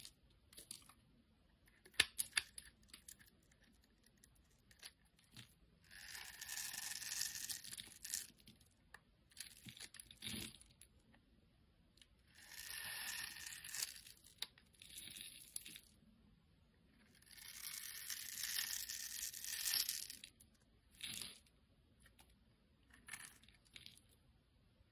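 Utility-knife blade cutting and scraping across a bar of translucent green soap. There are three long crisp scraping strokes, about six, twelve and seventeen seconds in, each lasting a couple of seconds, with light clicks and taps of the blade between them.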